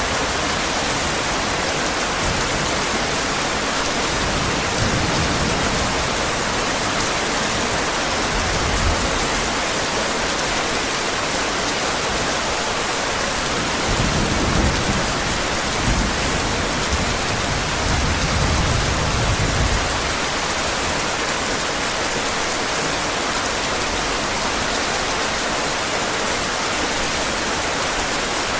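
Heavy rain falling steadily, with low rumbles of thunder twice, about halfway through and again a few seconds later.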